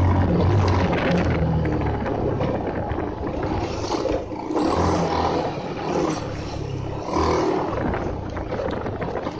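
Bajaj Pulsar's single-cylinder engine running while riding, its note rising and falling in several surges, with wind rushing over the tank-mounted microphone.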